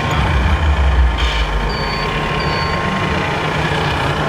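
Scale RC model truck's sound module playing a diesel engine sound, a low rumble loudest in the first second and a half, with a few short high beeps, over a steady background din.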